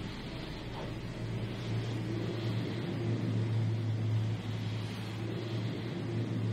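A low, steady rumbling drone that grows a little louder about a second and a half in.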